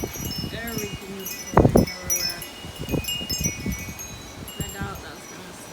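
Wind chimes ringing continuously in a gusty windstorm, with wind buffeting the microphone in irregular low thumps, the strongest a little under two seconds in.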